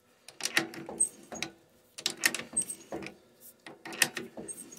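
Titanium-nitride threading die cutting a 5/16-18 thread on a rod, worked by hand in short turns with a small crescent wrench: metallic scraping and clicking in three bursts about a second long, with short pauses between them. The cut is going easily.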